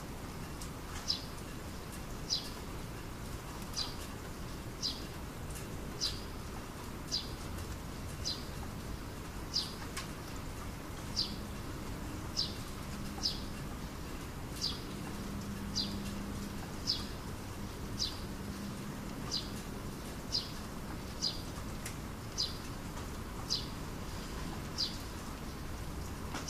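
A small bird calling a short, high, slightly falling note over and over, about once every second and a bit, above the steady hiss of light rain as the shower tapers off.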